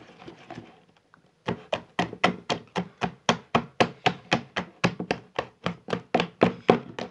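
A hand beating puff puff yeast batter in a plastic bowl: rhythmic wet slaps, about four a second, starting about a second and a half in.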